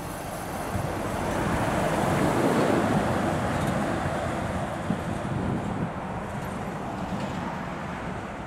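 Lorry driving past, its engine and tyre noise swelling to a peak about two to three seconds in, then slowly fading away.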